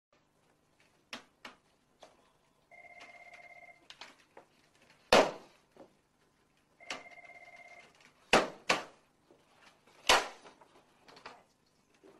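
Office telephone ringing twice, each ring about a second long, with several loud sharp bangs: the loudest about five seconds in, two close together about eight and a half seconds in, and another near ten seconds, with lighter knocks between.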